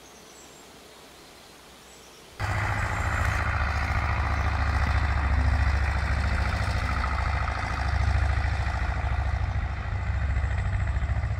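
Faint outdoor background noise, then about two seconds in a tractor's diesel engine cuts in abruptly and runs steadily with a low, pulsing rumble.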